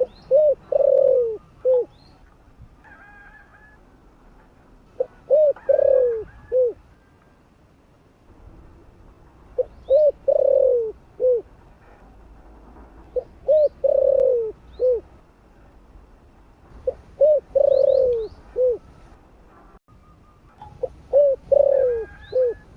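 Spotted dove cooing: six phrases about four seconds apart, each a couple of short coos, one longer falling coo and a short closing coo. Faint high chirps of other small birds sound between the phrases.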